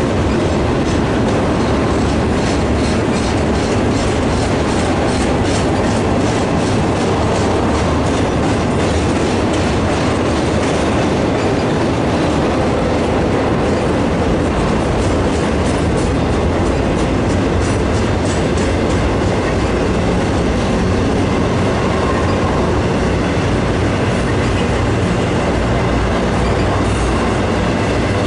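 Intermodal freight train cars rolling past, steel wheels on rail making a steady, loud rumble with a rapid run of clicking from the wheels.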